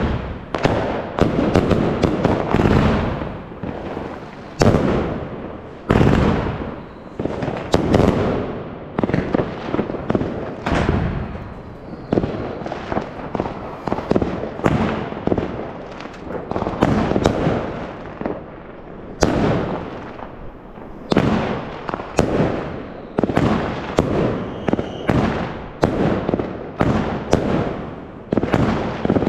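Fireworks and firecrackers going off in a continuous barrage: sharp bangs and cracks, often two or three a second and sometimes overlapping, each trailing off in a rumble.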